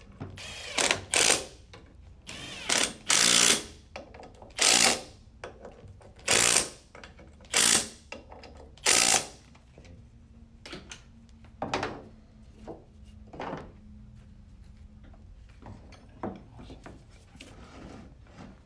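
Cordless power driver with a 12 mm socket spinning in short bursts, about eight in the first nine seconds, running bolts down on a CVT transmission case. Fainter clicks and clatter of tools and parts follow.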